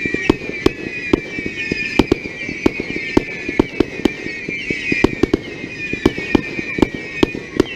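Fireworks display: a rapid, irregular run of sharp bangs, about three a second, over high, slowly falling whistling tones.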